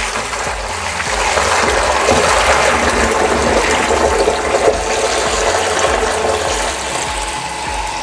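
Water gushing fast from a flexible hose into a plastic water tank, a steady rushing splash. The electric water pump is running, switched on by the float switch hanging at low level.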